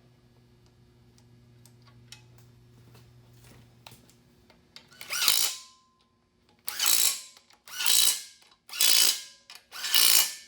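Flex plate bolts being run down with a socket tool: a quiet stretch with a few light clicks, then, about five seconds in, a series of loud strokes about a second apart, each lasting under a second.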